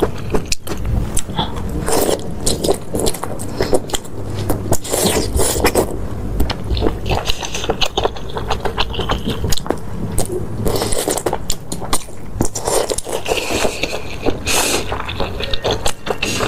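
Close-miked mukbang eating sounds: chewing and biting through a meal of noodles, tofu and soup, with a dense run of sharp clicks and smacks and short hissy patches.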